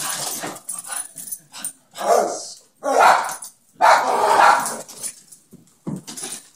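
Dog barking in rough play, a few loud barks about a second apart, with sharp knocks between them.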